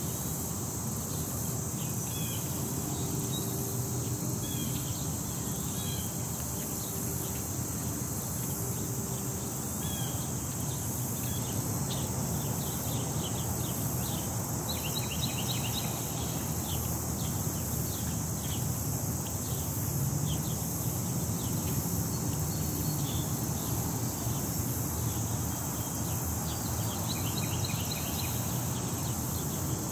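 Outdoor ambience: a steady high insect drone, low wind rumble on the microphone, and scattered short bird chirps, with a quick run of rapid chirps about halfway through.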